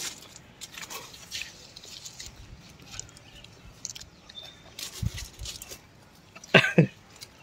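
Grape-vine leaves rustling, with scattered small clicks and crackles, as a boy bites grapes straight off the vine and chews them. Two sharp, louder sounds come close together a little before the end.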